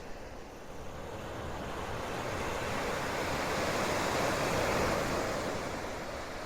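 Sea waves breaking in a strong mistral wind, one wave swelling to a peak a little past the middle and then easing off, with wind rushing over the microphone.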